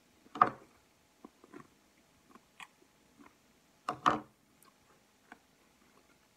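Close-up chewing with the mouth closed: soft wet mouth clicks, with two louder, short mouth noises about half a second and four seconds in.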